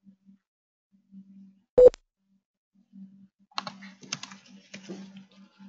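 Typing on a computer keyboard: a run of quick keystroke clicks through the second half, after a single sharp knock about two seconds in.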